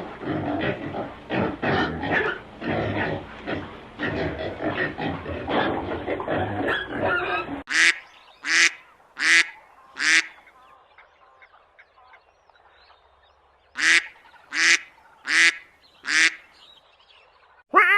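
A flock of domestic waterfowl calling over one another for about eight seconds. Then come two series of four loud, sharp single calls, evenly spaced, with a quiet pause of a few seconds between the series.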